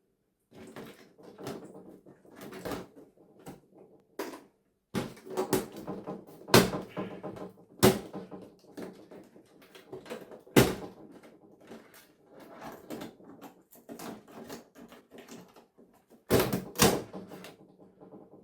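Irregular knocks, clicks and clatter of parts and tools being handled while a broken television is taken apart. The sharpest knocks fall at about six and a half, eight and ten and a half seconds in, with a quick pair near the end.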